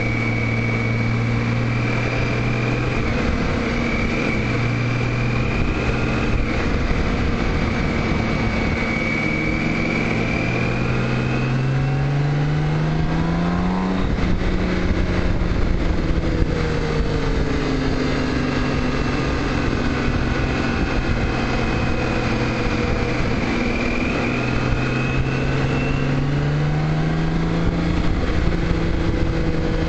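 Motorcycle engine running at road speed over a steady rush of wind and road noise. Its pitch holds steady, then climbs for a few seconds under acceleration and drops sharply at an upshift about halfway through. It climbs again near the end.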